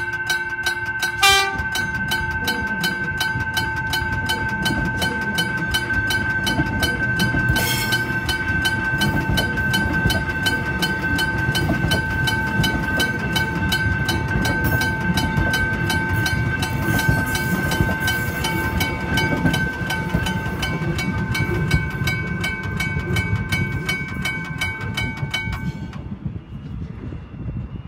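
McKenzie & Holland teardrop level-crossing bell ringing in rapid, even strokes with a clear two-pitched ring, over the rumble of an electric suburban train passing over the crossing. A short horn toot sounds about a second in, and the bell cuts off suddenly near the end.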